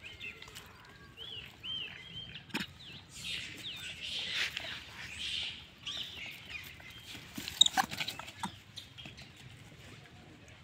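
Infant rhesus macaque giving a run of short, high-pitched squeaky calls, followed by dry leaves rustling and a few sharp crunches as it moves over leaf litter.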